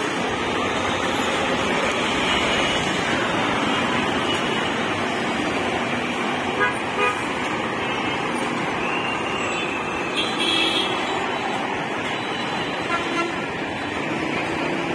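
Dense city street traffic of buses, auto-rickshaws and motorcycles running past at a steady level, with horns honking briefly several times, most clearly around ten seconds in.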